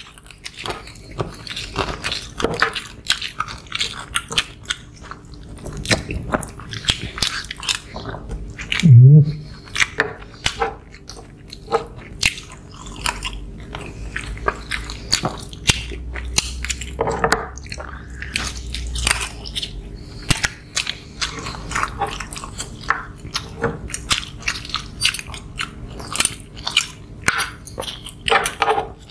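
Close-miked eating: chewing, biting and mouth smacks of two people eating rice noodles, fish and rice, with frequent short clicks of spoons and forks against plates. About nine seconds in comes one short, loud, low voiced sound.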